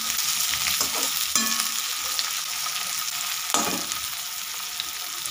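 Chopped onions, green chillies, garlic and ginger sizzling steadily in hot mustard oil in a steel kadhai as they fry toward browning. A few scrapes of a steel slotted spoon against the pan come through, the loudest about three and a half seconds in.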